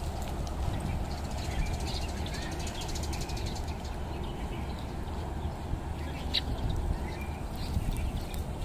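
Outdoor park ambience: scattered short bird chirps over a steady low rumble.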